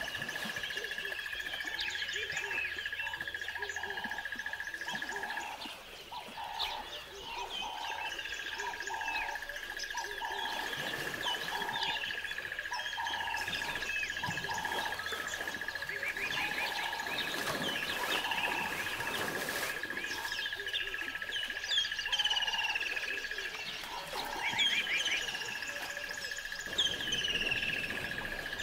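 Many birds chirping and calling over a steady high-pitched tone that drops out twice, with a lower call repeated at an even pace through the first half.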